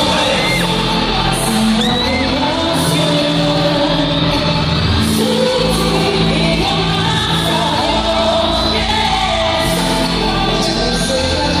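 Live K-pop concert heard from among the audience: singing over a loud pop backing track with a steady beat, in a large hall, while fans scream and shout along.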